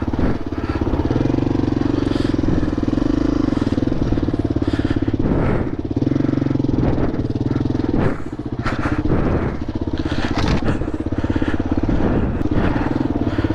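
Single-cylinder four-stroke dirt bike engine running at fairly steady low revs, its firing pulses even throughout, with a few short knocks and clatter along the way.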